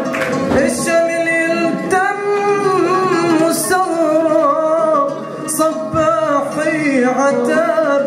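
Male voice singing an Arabic folk melody into a microphone, in long wavering held notes. A few short sharp hits sound now and then over the singing.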